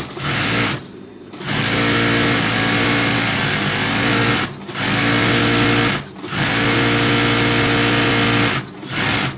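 Industrial lockstitch sewing machine running in five bursts, stopping briefly between them; the longest run lasts about three seconds. It is stitching a narrow folded fabric strip.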